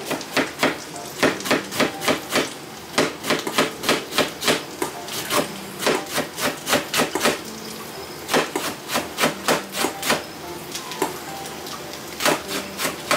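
Kitchen knife chopping on a wooden cutting board: a quick run of sharp knocks, about three a second, with a couple of short pauses.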